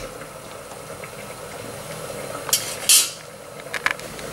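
Chopped garlic sizzling gently in olive oil in a stainless steel pan, with a few sharp clinks of a utensil against the pan about two and a half to three seconds in.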